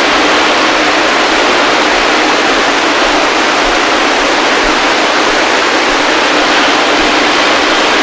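Steady static hiss from a CB radio's speaker with the squelch open and no station coming through: band noise between transmissions.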